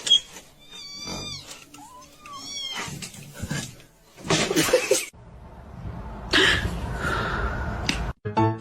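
A domestic cat meowing and yowling, several drawn-out calls that rise and fall in pitch over the first few seconds. These are followed by two louder, rough noisy sounds, one about four seconds in and a longer one from about six seconds.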